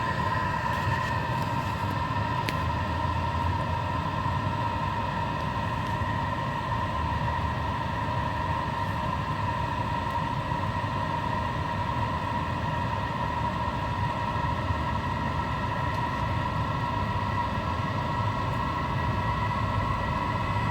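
A 5 kW Chinese diesel air heater running through its start-up, its blower fan spinning at a steady speed with an even, high whine over a low combustion rumble as the heater warms up.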